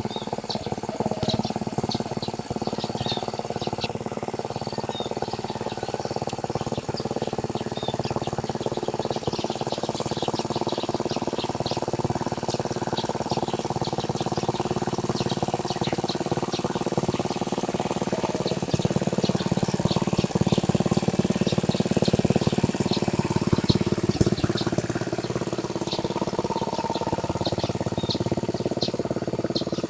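Tractor engine running steadily while plowing a rice paddy, getting a little louder partway through, with small birds chirping over it.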